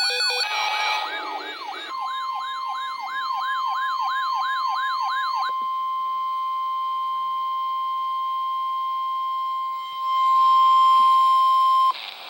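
Weather radios' built-in alarm sirens sweep up over and over, about three times a second, over the steady single-pitch tone of the NOAA Weather Radio 1050 Hz warning alarm. The sirens stop about five seconds in and the warning tone carries on alone. It gets louder near the end, then cuts off suddenly.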